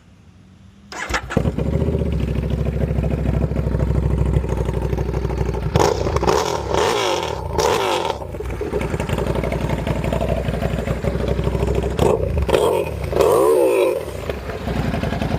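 2009 Buell 1125R's V-twin engine starting about a second in through a new custom exhaust with no dB killer, then idling with several quick throttle revs. The exhaust is extremely loud.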